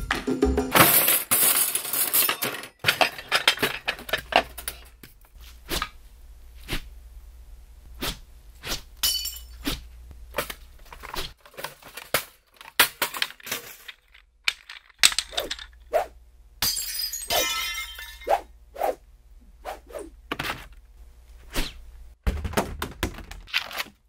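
Foley for vinyl records being thrown and smashing: an irregular series of sharp cracks, thunks and breaking sounds, bunched at the start and again about two-thirds of the way through.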